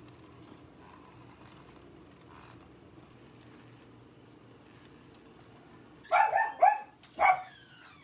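A dog barks about six seconds in: three short, high-pitched barks in quick succession, then one more a moment later.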